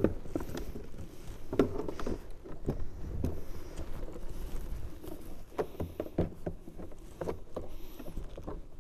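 Irregular small clicks, taps and rustles of hands working a plastic front bumper and its headlight-washer hose free, over a low background rumble.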